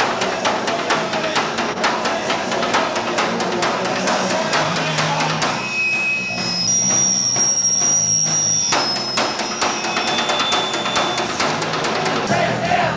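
Live band music with a drum kit played hard and fast. About halfway through, the drumming thins out for roughly three seconds while thin high tones ring over low notes, then the full drumming comes back.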